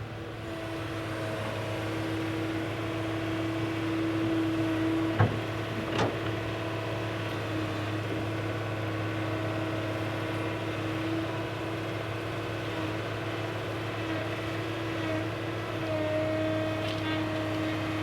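Excavator motor running steadily with a held whine that rises and falls slightly in strength, and two sharp knocks about five and six seconds in.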